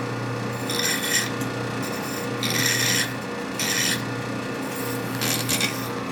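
A transmission part being filed down by hand to a measured thickness: four slow, even rasping strokes, roughly one every second and a half.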